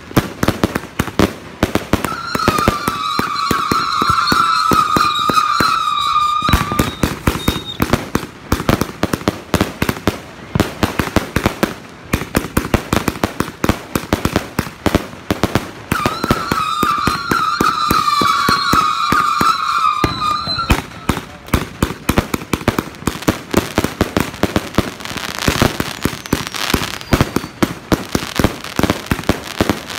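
Eclipse 260-shot fireworks cake firing in a rapid, continuous run of shots and bursts. A wavering high whistle rides over the shots twice, for about four seconds each time.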